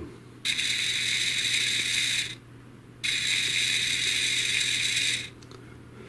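MAMIBOT robot vacuum drive-wheel gear motor and gearbox running twice, about two seconds each, a high mechanical whir as the wheel spins; the freshly cleaned and reassembled gearbox works.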